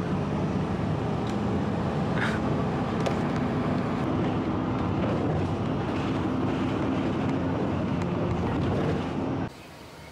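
Inside a moving bus: the engine's steady drone and road noise. It cuts off abruptly about nine and a half seconds in.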